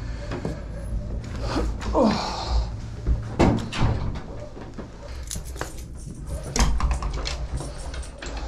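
Doors opening and closing and a folding bicycle being bumped through them: irregular knocks, thunks and clatter, with a short falling squeak about two seconds in and rubbing and bumping on a body-worn camera.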